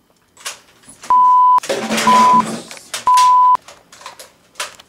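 Three censor bleeps, each a steady beep of about half a second, the middle one shorter. Between the first two there is a burst of noisy shouting, and a few sharp knocks fall around them.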